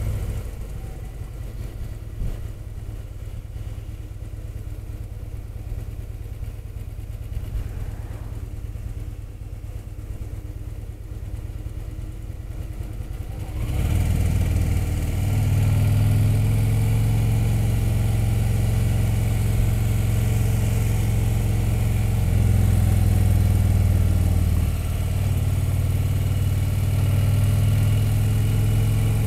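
Touring motorcycle engine heard from the rider's seat while riding, running quietly at light throttle, then opening up about halfway through into a louder, steady engine note that holds on to the end.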